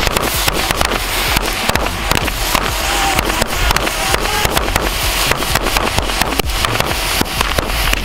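Belts of small firecrackers (carrilleras) going off together. Many sharp bangs follow in rapid, irregular succession without a break.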